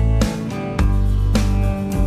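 Background music led by a plucked and strummed guitar over a steady bass, with notes struck about every half second.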